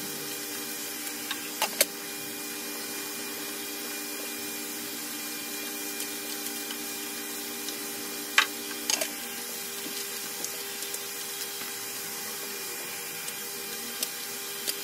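Plastic Dolce Gusto coffee capsules clicking and knocking against a wooden capsule rack and the table as they are handled and slotted in, a few sharp clicks (the loudest about halfway through) over a steady hiss and hum.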